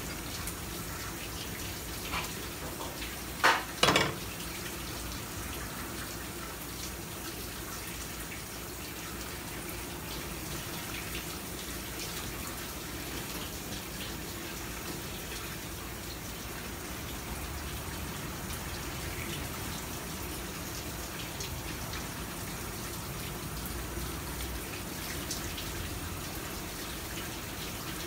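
Tap water running in a thin stream from a faucet onto a plastic cutting board and the squid being washed under it, a steady splashing. A few sharp knocks come about two to four seconds in.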